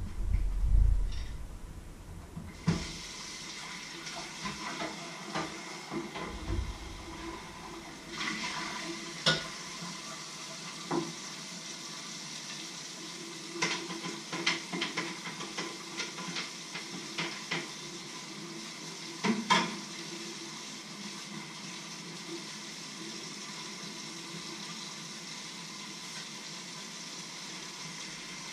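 Tap water running steadily into a stainless-steel kitchen sink during hand dishwashing, starting about two and a half seconds in. Scattered clinks and clatter of plates and cutlery, thickest through the middle.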